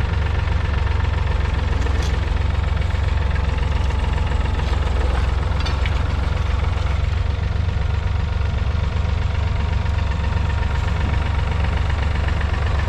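1969 David Brown 780's 2.7-litre three-cylinder diesel engine running steadily with a deep rumble.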